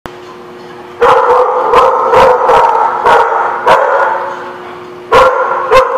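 Dogs barking: a string of sharp, loud barks about twice a second, starting about a second in, easing off for a moment before two more barks near the end.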